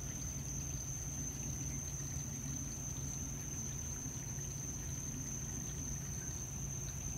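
Aquarium filter running: steady trickling water over a low hum, with a constant high-pitched whine.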